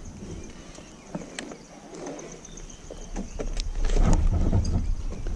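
Low rumble and scattered knocks of a motorcycle being shifted about on loose, stony ground, growing louder about three seconds in.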